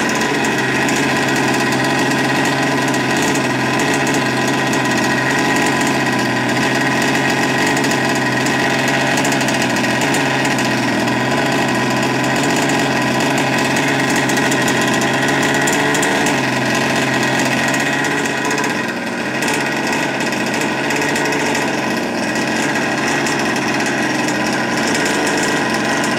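OBR 57cc full-mod twin-cylinder two-stroke engine on a 1/5-scale RC buggy running steadily at idle, with a brief wavering about eighteen seconds in. The engine is running rich because it is not yet run in and its carbs are not yet fine-tuned.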